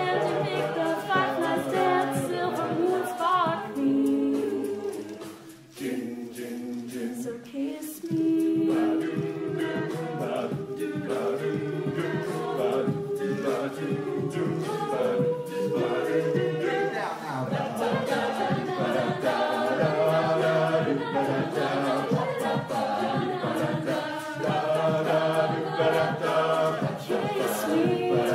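A cappella group singing in close harmony, a female lead voice over the group's backing voices, with no instruments. The singing thins out briefly about five seconds in.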